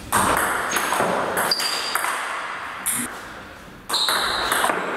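Table tennis rally: a celluloid-type ball is struck by rubber-faced bats and bounces on the table, making a string of sharp, irregularly spaced clicks. Some of the clicks are followed by a short, high ping.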